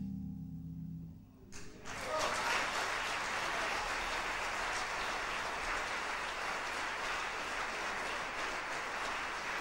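Last chord of two archtop jazz guitars, one a seven-string, dying away about a second in. After a brief pause, audience applause starts and carries on steadily.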